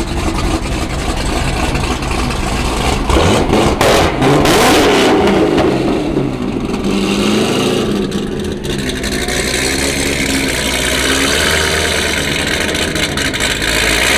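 C6 Corvette's V8 burbling as the car rolls past at low speed, with a rev about three to five seconds in before it settles back to a steady low rumble.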